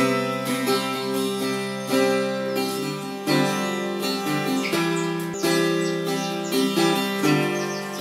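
Background music: an acoustic guitar playing chords, with a new chord struck about every second.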